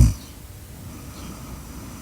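A sleeper's loud, deep snore stops abruptly at the very start, followed by faint breathing between snores.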